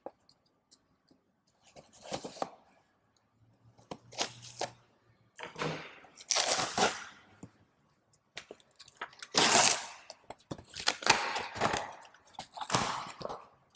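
A knife slitting the packing tape on a cardboard shipping box, then the box being pulled open and its contents handled, in several separate bursts of scraping and rustling.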